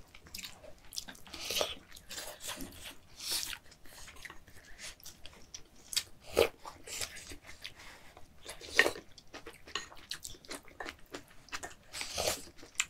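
Two people eating close to the microphone: chewing and sipping hot kimchi stew from wooden spoons, with scattered short clicks and smacks. The two loudest smacks come about six and a half and nine seconds in.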